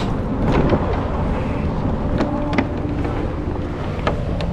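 Steady low rumble of road and engine noise from a moving vehicle, with a few light clicks.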